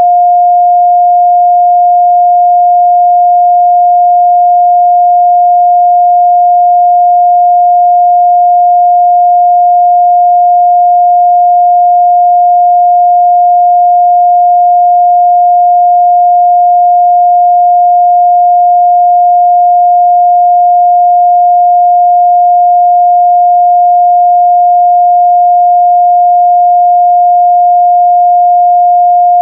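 A pure 708 Hz sine-wave test tone, one steady unwavering pitch held at a constant loud level.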